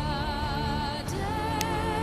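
Background music with a high singing voice holding long notes with strong vibrato over a low, dense accompaniment.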